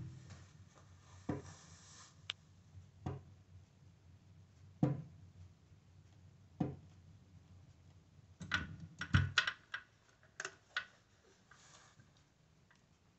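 Garrard Z2000B automatic turntable's mechanism cycling after the record is stopped: soft regular thumps about every two seconds, then a quick run of mechanical clicks and clacks about eight to eleven seconds in as the tonearm swings back onto its rest.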